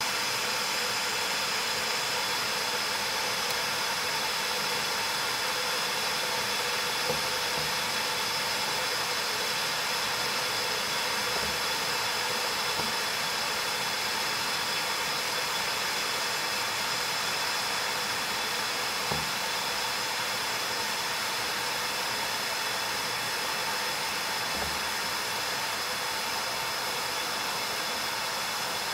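Stovetop whistling kettle at the boil: a steady, breathy whistle at a constant pitch over the hiss of escaping steam. It cuts in suddenly.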